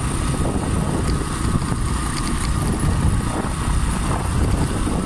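A motorcycle riding steadily along a dirt road, its engine running under a heavy rumble of wind buffeting the microphone.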